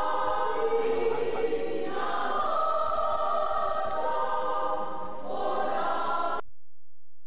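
A group of people singing together in long held notes, cutting off suddenly near the end.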